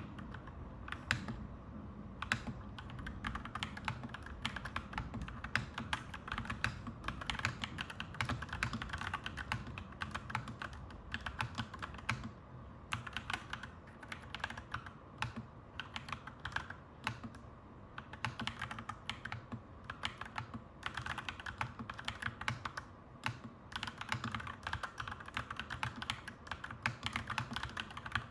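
Mechanical keyboard typing, clacky keystrokes in quick continuous runs with a few short pauses.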